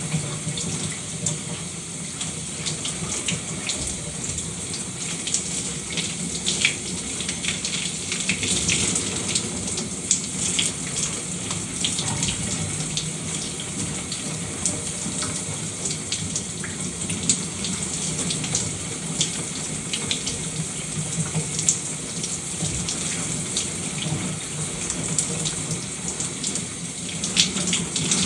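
Shower water running steadily, spray hissing and spattering as drops hit the floor or tub.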